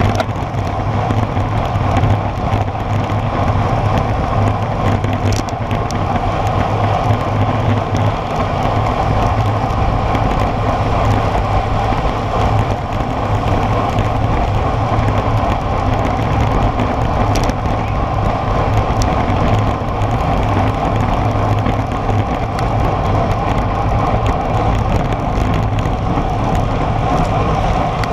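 Steady wind rush on the microphone of a camera mounted on a road bike riding at around 40 to 50 km/h, with tyre noise on asphalt underneath. Two brief clicks stand out, one a few seconds in and one about two thirds of the way through.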